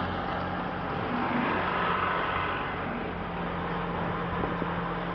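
A motor running steadily: a low even hum under a broad hiss.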